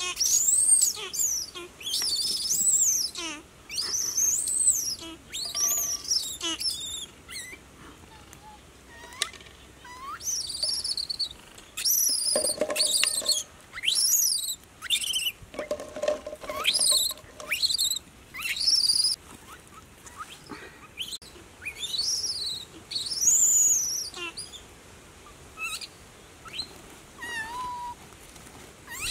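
Loud, high-pitched chirping calls, each a short note that rises and falls, coming in quick runs of several with brief pauses between runs.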